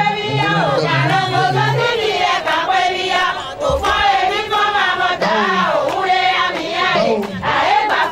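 A group of Vodoun adepts singing a chant together, many voices at once, with sharp percussive strokes through it.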